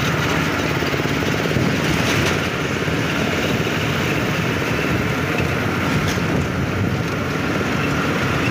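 Steady engine drone and road noise heard from aboard a moving city bus.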